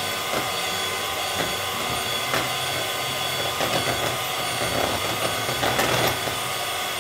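Electric hand mixer running steadily, its beaters whisking eggs to a froth in a plastic bowl, with a few light clicks.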